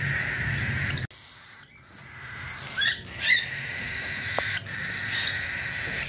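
Cockatiels giving a few short chirps, a quick cluster about halfway through, over a steady background hiss. The sound drops out suddenly about a second in and comes back gradually.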